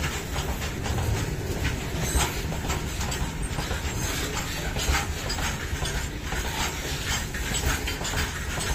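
Tarpaulin-covered BOXNL open wagons of a freight train rolling past, their wheels giving irregular clacks over the rail joints above a steady low rumble.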